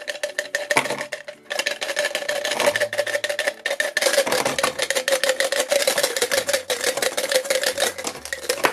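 Gumballs and small plastic toys pouring from a plastic bottle and clattering into a clear plastic cup: a rapid, continuous run of clicks and knocks over a steady hum.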